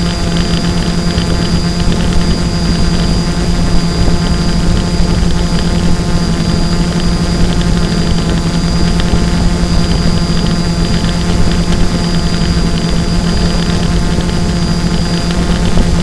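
Quadcopter drone's motors and propellers humming steadily, with a thin high motor whine above and a rough low rumble of wind.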